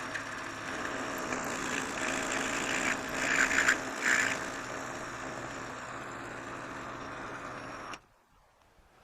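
Lathe running at slowed spindle speed as a parting tool cuts an interrupted cut through a knob's finger grips. Two short, louder bursts of tool chatter come about three and four seconds in, the sign of the parting tool vibrating. The sound cuts off abruptly about eight seconds in.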